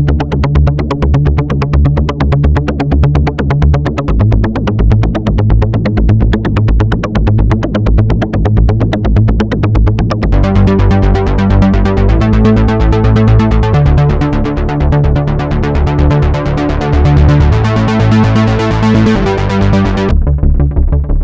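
Korg Mono/Poly analog synthesizer playing: fast, evenly repeating bright notes over a bass line that shifts pitch about four seconds in. About halfway through, the sound changes to held notes stepping up and down in pitch, and near the end the bright top drops away, leaving the low notes.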